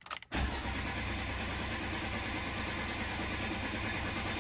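Car engine turning over on the starter motor for about four seconds without firing, after a couple of clicks as the key is turned. The car is a non-runner showing a 'fuel cut off' warning, which the owner has just tried to reset.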